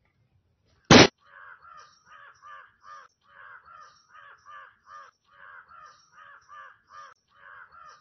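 A single loud, sharp bang about a second in, from the firecracker put into the petrol on the water. Then crows cawing over and over, about three caws a second.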